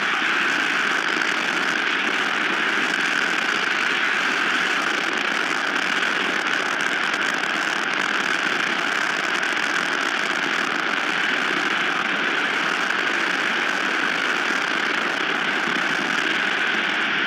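Strong wind blowing across the nest camera's microphone: a loud, steady rush of noise with no separate gusts or pauses.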